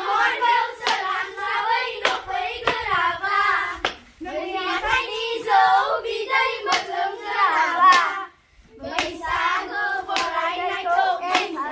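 A group of children singing a Bodo Bwisagu dance song together, with sharp clapping beats over the singing. The singing breaks off for a moment about eight seconds in, then starts again.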